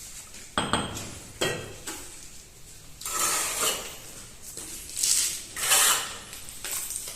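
Bricklaying tool sounds: a metal trowel clinks twice on brick, then scrapes mortar in three short strokes.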